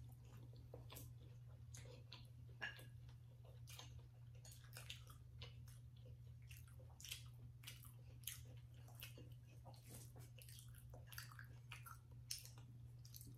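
Quiet mouth sounds of people chewing sushi rolls: many small wet clicks and smacks at an irregular pace, over a steady low hum.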